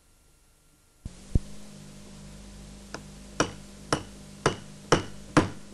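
Near silence for about a second, then the sound cuts in with a faint low hum. From about three seconds in, a hammer strikes a metal hole punch held upright on a small block about twice a second, five sharp knocks, punching a hole.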